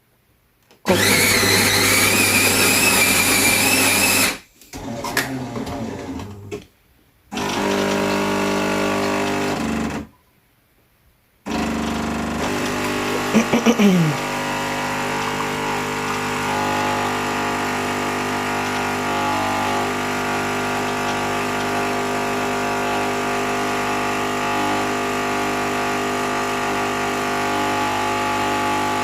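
Jura Impressa F8 bean-to-cup coffee machine making a single coffee. Its grinder grinds beans for about three seconds, then shorter runs of the brewing mechanism follow with two brief pauses. After that the pump hums steadily as the coffee brews.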